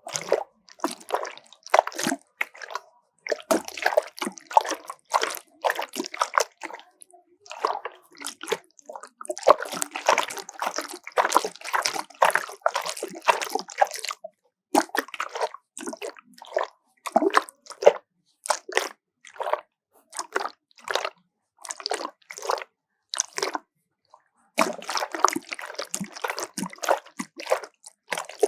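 Water sloshing and splashing inside a bottle, in a series of short bursts of quick splashes with brief silent pauses between them.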